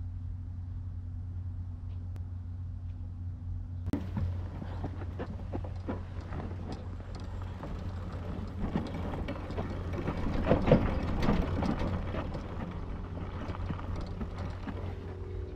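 Go-kart's small engine idling with a steady low hum, joined about four seconds in by clattering and rustling as things are handled on and around the kart, loudest around ten to eleven seconds.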